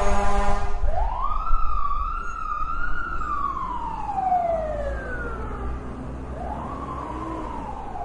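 Fire truck siren in a wail: a steady horn blast cuts off about a second in, then the siren winds up, wavers at the top, slowly falls away, and winds up again near the end, over a low engine rumble.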